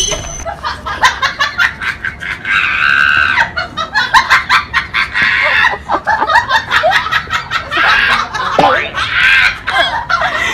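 Laughter in several bouts of quick, pulsing bursts, with sharp clicks in between.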